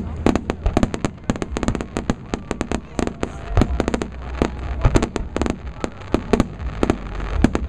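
Fireworks display in a barrage: shells bursting in a rapid, uneven string of sharp bangs and crackles, several a second.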